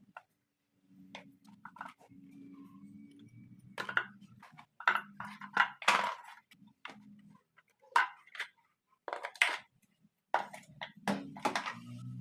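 Irregular clinks, clacks and knocks of tools and washing-machine parts being handled during the pulsator replacement, with the loudest cluster about halfway through. A faint low hum comes and goes underneath.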